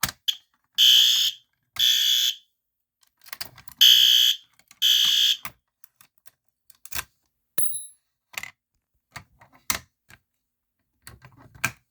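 System Sensor fire alarm horn strobe sounding, set off from a pull station: four loud, high-pitched blasts about half a second long, in two pairs a second apart. A few scattered clicks and knocks follow.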